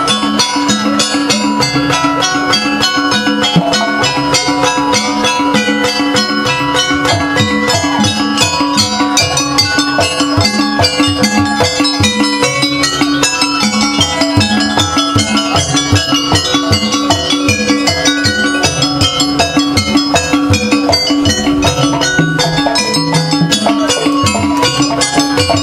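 Gamelan-style Jaranan Buto ensemble of drums, gongs and metallophones playing a fast, repeating rhythm over a held low tone.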